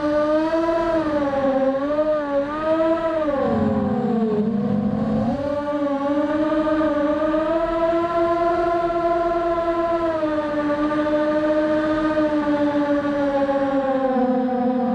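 Brushless motors and 5-inch props of a ZMR250 FPV racing quadcopter (T-Motor 1806 2300 kV on 4S) whining in flight, heard from the onboard camera. The pitch wavers with throttle, drops low about four seconds in, then climbs back and holds fairly steady.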